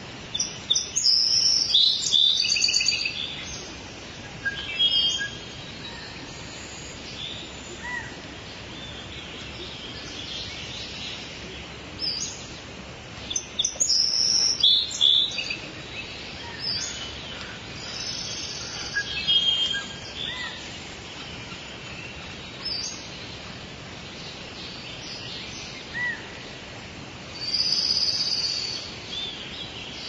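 Rainforest birds calling and chirping in scattered bursts over a steady background hiss. The loudest flurries of calls come about a second in, around the middle and near the end.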